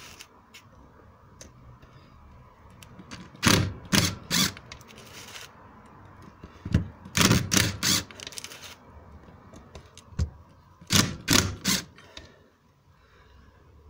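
Screwdriver undoing the screws on the front of a viscous fan clutch, in three bursts of sharp metallic clicks a few seconds apart.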